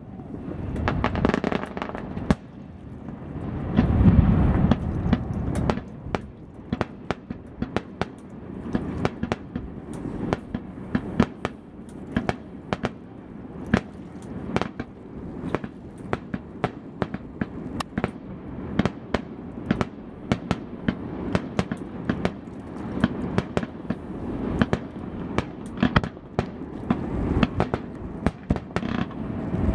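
Aerial fireworks shells bursting: deep booms about a second in, around four seconds and again near the end, over a near-continuous run of sharp cracks and pops from crackling shells.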